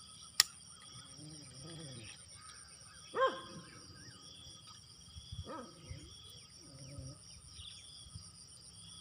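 Insects trilling steadily with a high buzz and repeated chirps, a sharp click just under half a second in, and a few short animal calls at about three and five and a half seconds in.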